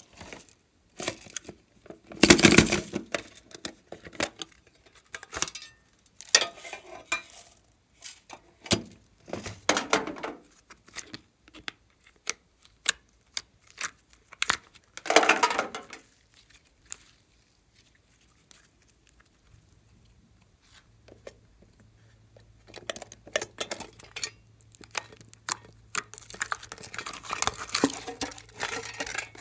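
Handling slime and its plastic tubs: lids and containers clicking and crinkling while slime is pulled and stretched out, with irregular sticky crackles. Louder bursts come about two seconds in and about halfway through, and the crackling grows denser near the end.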